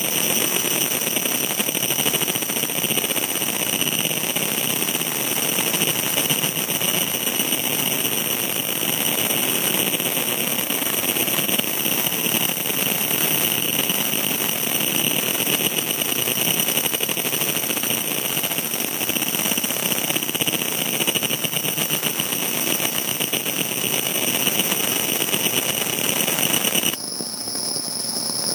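Laser engraver running as it engraves a stone: a steady machine whir with several steady high-pitched whines over it. Near the end the whir drops away and the whines shift in pitch.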